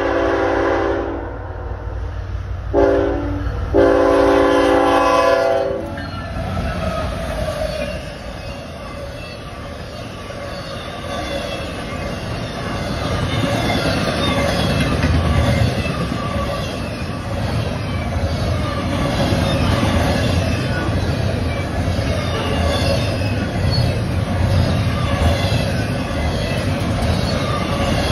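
Locomotive air horn sounding at a grade crossing: the end of a long blast, a short blast about three seconds in, then a long blast of about two seconds. Then the double-stack intermodal freight train passes close by, a steady rumble and clatter of wheels that grows louder.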